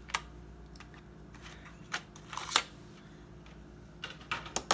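A few light clicks and taps of planner supplies being handled on a desk, as sticker sheets are touched and a pair of scissors is picked up; the sharpest tap comes a little past halfway, with a small cluster of clicks near the end.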